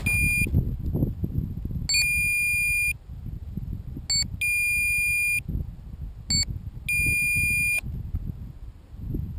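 Electronic beeping from the downed RC plane's electronics: a short beep followed by a long beep of about a second, repeating in the same pattern about every two and a half seconds, over a low rumbling noise.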